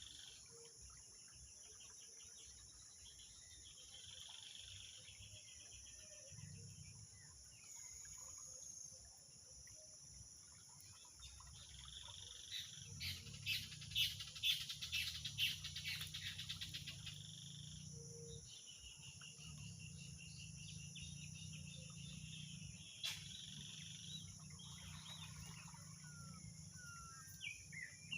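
Outdoor chorus of insects and birds: a steady high-pitched insect buzz with repeated trilling calls, and a burst of fast chirping about halfway through. Short gliding bird chirps come in near the end.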